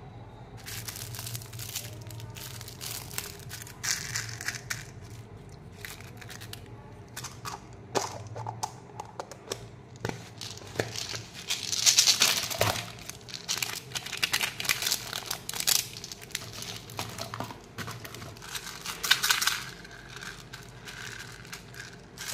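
Plastic candy wrappers and toy packaging crinkling and rustling as hands rummage through them, with scattered clicks and taps of hard plastic; the loudest rustles come about halfway through and again near the end.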